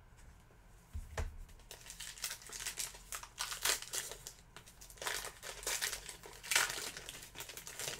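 Plastic trading-card pack wrapper crinkling in irregular bursts as the pack is handled and opened, with a soft bump about a second in.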